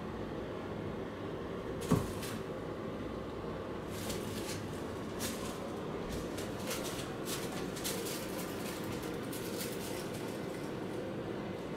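A clear plastic bag on top of a running Hitachi air purifier crinkles and rustles in many quick crackles as a cat noses and pushes its head into it, over the purifier's steady fan noise. A single thump about two seconds in.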